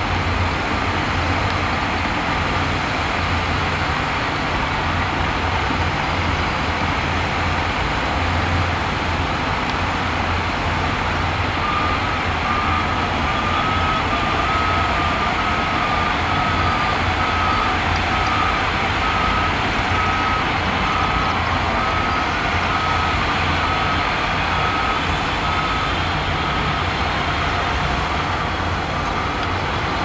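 Diesel engines of bulldozers and dump trucks running under load. A reversing alarm beeps steadily, a little under twice a second, from about twelve seconds in until near the end.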